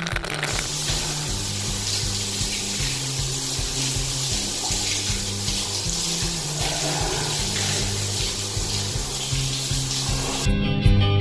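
Shower water spraying steadily onto a motorcycle helmet and textile riding jacket, a constant hiss that stops suddenly near the end, with a music bass line underneath.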